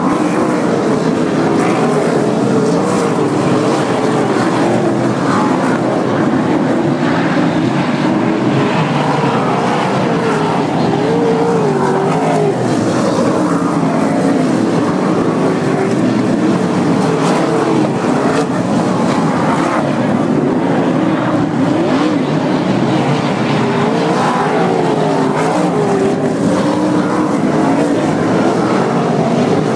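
Several sprint cars' V8 engines running on a dirt oval, their pitch wavering up and down as the cars circle the track.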